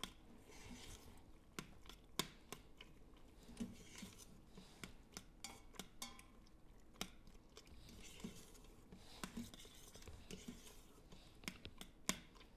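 Metal utensil clicking and scraping against the stainless steel inner pot of an Instant Pot while stirring cooked shell pasta in a cheese sauce. Faint, irregular clicks with soft wet stirring between them.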